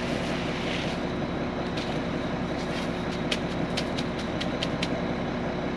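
Concrete mixer truck running steadily during the pour, its engine drone holding a constant pitch. A series of sharp ticks and clicks joins in from the second half, several a second toward the end.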